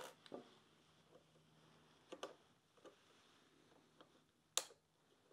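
A handful of faint, sharp clicks and taps, six or so spread out, the loudest near the end: plastic electrical connectors being handled and unplugged from a metal bracket.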